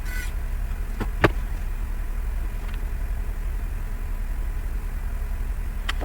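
A steady low hum, with a few light clicks and taps: two about a second in and one just before the end.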